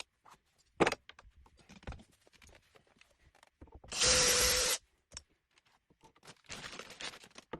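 Cordless drill-driver running in one short burst with a steady whine, driving a screw to fix a door handle, among small clicks and knocks of the handle and screws being handled.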